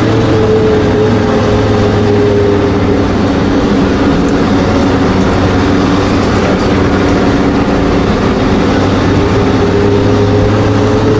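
Mercedes Sprinter 312D's five-cylinder turbodiesel running at low speed, heard from inside the motorhome's cab as it climbs narrow streets. The engine note sags a little mid-way and rises again near the end.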